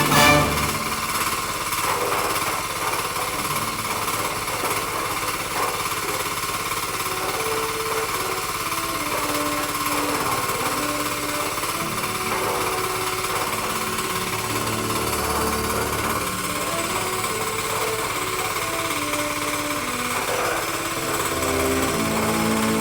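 Two-bagger concrete mixer running steadily, a dense even mechanical clatter and drone. A faint melody of held notes plays underneath.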